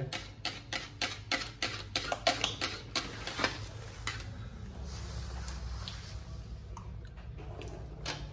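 Metal spoon clicking and scraping against a plastic curd cup held over a pan while curd is scooped out: a quick run of light clicks for about three seconds, then only scattered clicks over a low steady hum.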